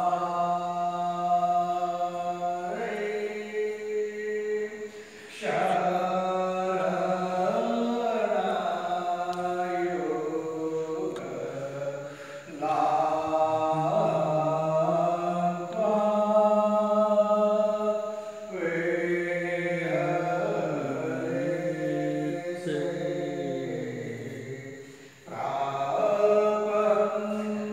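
Devotional aarti chanting: a voice holds long, steady notes in phrases several seconds long, with short breaks between them.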